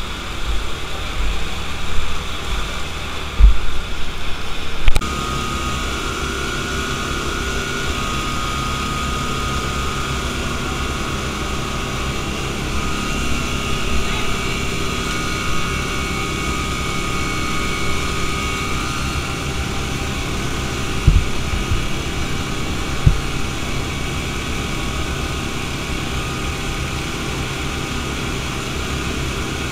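Steady drone of engines running with a high, wavering whine, from the fire trucks pumping water through the hoses. It is preceded by about five seconds of low rumble and a few knocks on the microphone.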